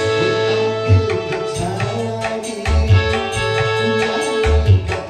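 Live stage-band music: repeated deep drum thumps and a drum pattern under a long held note, with electric guitar.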